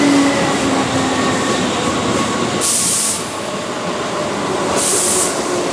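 Keihan 2200-series electric train running past on curved track: a steady wheel-and-rail rumble with a faint whine. Two short high hisses come about three and five seconds in.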